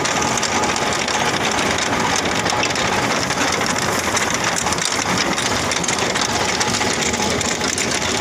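Tractor engine running under load while a tractor-drawn potato digger's bar-chain elevator rattles steadily, shaking soil off the lifted potatoes.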